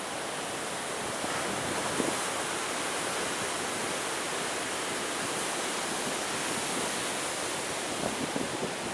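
Steady rushing noise of strong wind, with a few gusts buffeting the microphone near the end.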